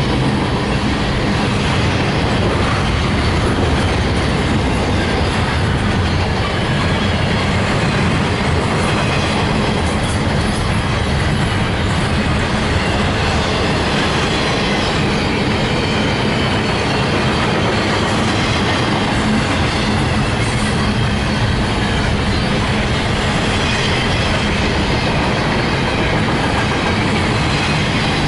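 CSX intermodal freight train's double-stack container cars rolling past steadily, steel wheels on the rails making a continuous loud clatter.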